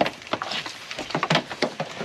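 Irregular clicks, knocks and rustles of car-audio wiring being handled and pulled through the truck's cab.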